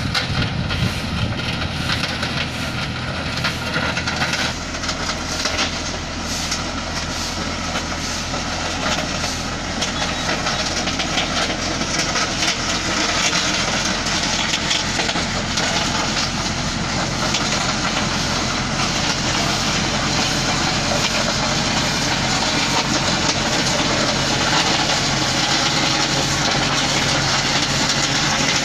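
Komatsu GD555 motor grader's six-cylinder diesel engine running steadily as it works, a low drone under a constant broad hiss, gradually growing a little louder.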